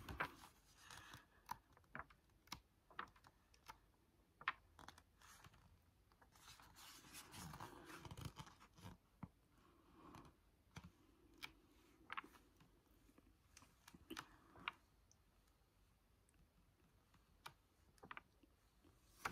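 Faint rustling and soft clicks of paper pages being turned by hand in a printed card checklist booklet, with a longer swish of paper about seven seconds in.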